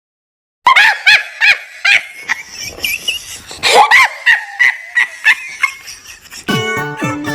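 A brief silent dropout, then a quick run of short, yelping animal-like calls with bending pitch, about two or three a second. The children's song music comes back near the end.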